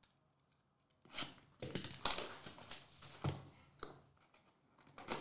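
Cardboard trading-card hobby box being opened by hand: a string of short rustling and scraping sounds that starts about a second in.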